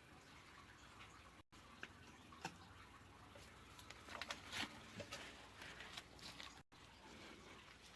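Near silence: room tone with a few faint scattered clicks and taps, a small cluster of them about halfway through.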